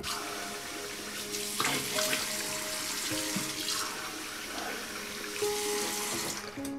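Tap water running steadily from a chrome faucet into a bathroom sink, cutting off near the end.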